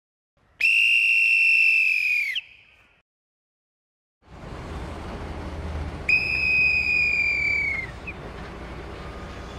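A whistle blown in one long, steady blast that dips in pitch as it stops: the crane signal for 'hoist lower'. After a short silence, an engine starts running steadily in the background, and a second long whistle blast sounds over it.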